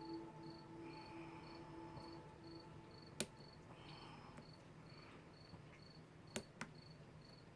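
Faint cricket chirping in an even rhythm, about two chirps a second. A few sharp clicks, one about three seconds in and two close together near the end, come from lock picks working in a Kwikset SmartKey padlock.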